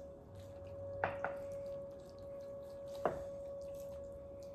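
A few short clicks and taps of a knife against a wooden cutting board while a raw turkey leg is cut from the thigh at the joint: two close together about a second in and one about three seconds in. A steady faint tone hums underneath.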